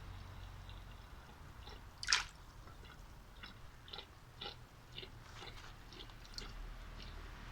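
Small water splashes and drips, with one louder splash about two seconds in followed by scattered light ticks: goldfish splashing at the surface as they spawn.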